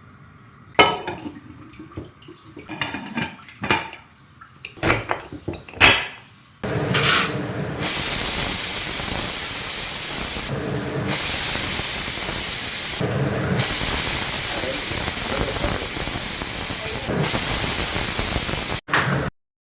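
A few scattered knocks and clatter of kitchen handling, then a loud steady rushing hiss starts about seven seconds in, dips briefly twice, and cuts off suddenly near the end.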